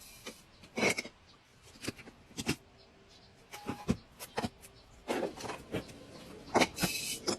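Food containers and packaging being handled and set down: a string of short knocks, clicks and rustles, the loudest near the end.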